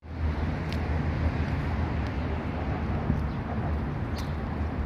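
Steady low rumble of vehicle noise, with a few faint clicks over it.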